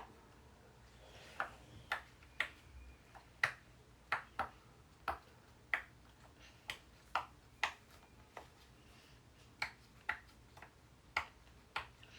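Bubbles of a giant silicone pop-it fidget toy being pressed one after another, each giving a short soft pop, irregularly about one to two a second.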